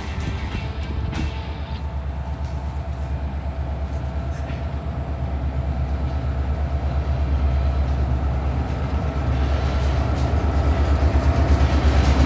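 EMD diesel locomotives of a loaded rock train approaching, a low rumbling engine sound growing steadily louder.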